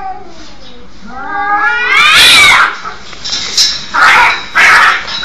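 A cat giving one long, drawn-out meow that rises and then falls in pitch, starting about a second in. Near the end come two short, harsh, noisy bursts.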